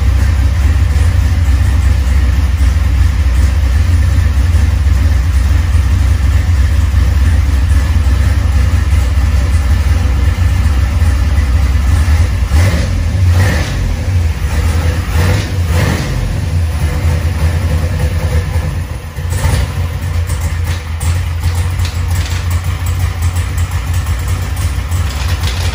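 Corvette's 427 big-block V8, fuel-injected with Holley EFI, idling steadily at about 1,000 rpm with a deep, even rumble. A few brief sharp clicks come around the middle.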